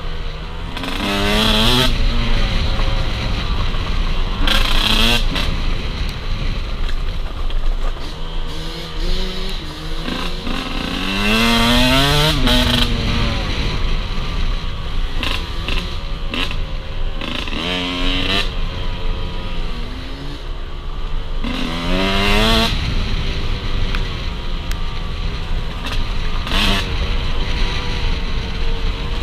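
Enduro motorcycle engine revved hard and let off again and again while riding off-road, its pitch climbing and dropping several times.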